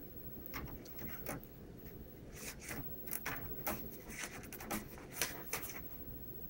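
A cat pawing and scratching at a printer: irregular light taps, clicks and rustles.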